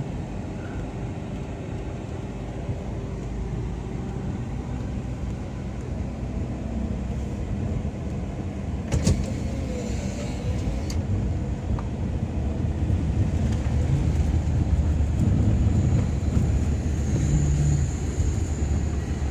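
An engine running with a steady low rumble that grows louder over the second half, with a sharp click about nine seconds in.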